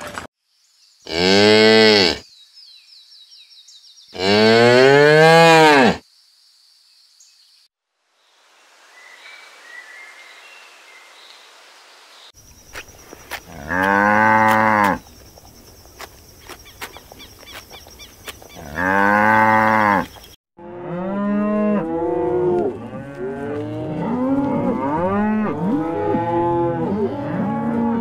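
Cattle mooing: four long, loud moos from single cows, each rising and then falling in pitch, with a quieter stretch between the second and third, then for the last several seconds many cows mooing at once in overlapping calls.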